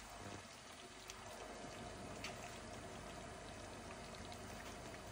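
A pot of pepper stew bubbling faintly on the hob, with small scattered pops.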